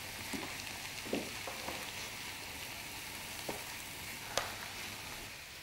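Celery and onion sizzling steadily in a frying pan as their cooking liquid reduces, with a few short clicks of a utensil against the pan.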